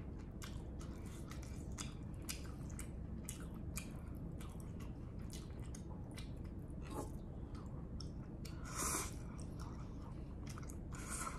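Close-up mouth sounds of a person eating noodles: chewing with many small wet clicks, and two short slurps, about nine seconds in and again near the end.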